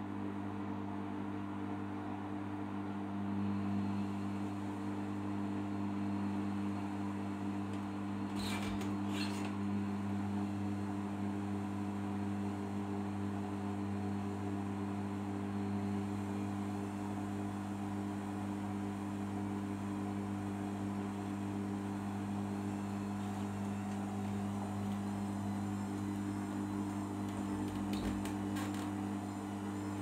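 Arçelik 5083 front-loading washing machine turning its drum in the wash phase, tumbling wet laundry: a steady motor hum that grows a little louder a few seconds in. Two brief knocks come about 9 seconds in and two more near the end.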